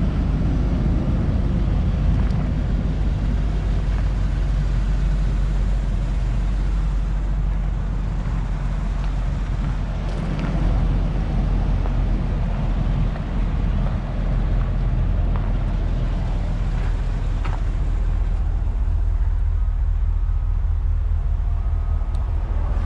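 Isuzu NPR HD's gasoline 6.0-litre V8 idling steadily, a low, even rumble heard close to the truck, with a few faint clicks.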